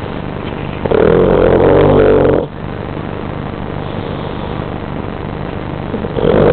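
Sleeping dog snoring: one loud snore about a second in, lasting about a second and a half, and another starting near the end, over a steady low hum.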